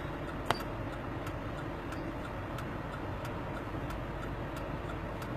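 Quiet car-cabin background noise with faint, fairly regular light ticks and one sharper click about half a second in.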